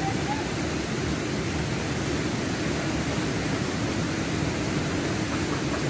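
Steady rush of a waterfall: an even, unbroken noise of falling water, strongest in the low-middle range.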